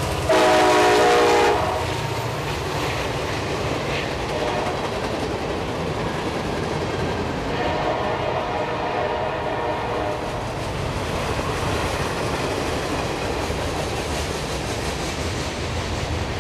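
Freight train passing close by, its wheels rumbling and clacking over the rail joints. A short, loud blast of the locomotive's air horn comes about half a second in.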